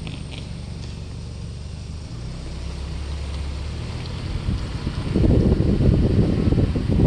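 Steady low rumble of a car riding along. About five seconds in, a much louder rough, fluttering rush sets in, wind buffeting the microphone.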